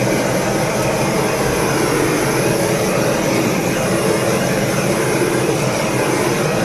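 Handheld butane torch flame running with a steady hiss as it is played over a wet acrylic pour, heating the paint to bring cells up to the surface.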